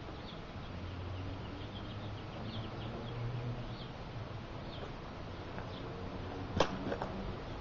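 Quiet outdoor ambience with faint bird chirps and a low hum, then a single sharp knock near the end.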